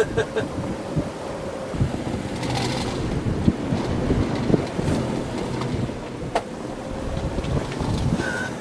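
Strong wind of about 30 knots buffeting the microphone over choppy sea, with a faint, steady whistle of the wind running underneath.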